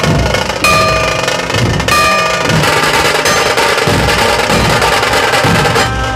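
Loud drumming of a street procession's drum band: continuous snare-like rolls and beats over a bass drum. A short, high held note sounds over the drums twice.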